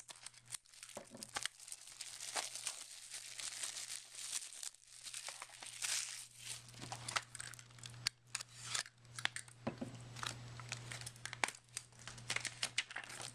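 Thin plastic shrink-wrap crinkling and tearing as it is peeled off a Blu-ray case, with many small clicks of the plastic case being handled.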